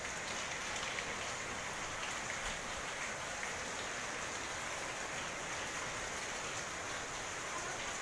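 Hailstorm with heavy rain: a steady hiss of rain and hailstones pelting surfaces, with a few faint ticks scattered through it.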